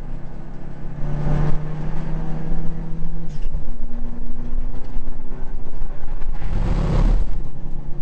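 Mitsubishi Lancer Evolution VII's turbocharged four-cylinder race engine, heard from inside the cabin while racing. The engine note holds steady, steps in pitch a little over three seconds in, then runs steady again, with two short rushing bursts of noise, the louder one about seven seconds in.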